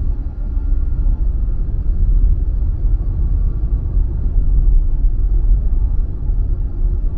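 Steady low rumble of a car being driven: tyre and engine noise.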